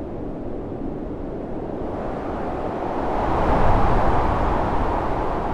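Powder avalanche rumbling down a mountainside: a steady rushing rumble that swells to its loudest about three to four seconds in, then eases.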